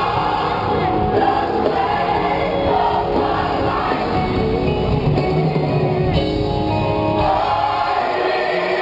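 Large gospel choir singing live, many voices together in a full, steady sound.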